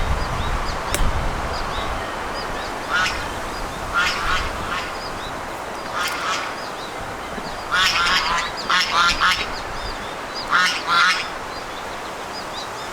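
Ducks quacking in short repeated bouts, the loudest runs of calls coming in the second half. Low wind rumble on the microphone near the start.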